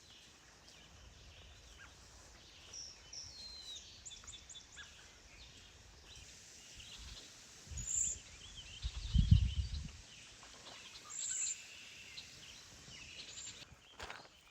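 Several songbirds singing and calling in short phrases, fairly faint. A low rumble comes in briefly about eight seconds in and again a second later.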